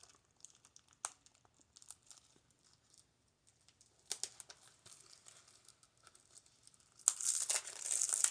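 Packaging being handled and unwrapped: light scattered rustles and clicks, then loud continuous crinkling and tearing about seven seconds in.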